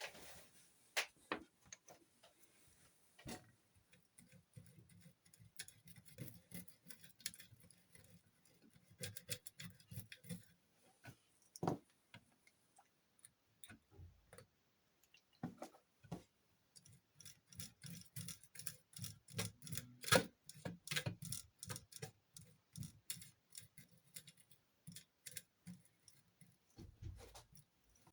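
Irregular small clicks and taps of tools and parts being handled on an opened laptop, with a denser run of quick clicks in the second half.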